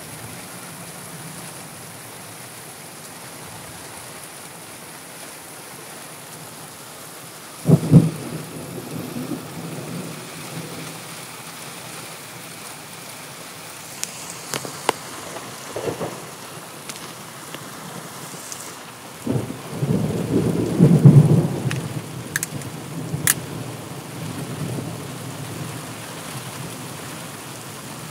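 Steady rain with thunder. A sudden sharp thunderclap comes about eight seconds in, and a longer peal of thunder follows about twenty seconds in.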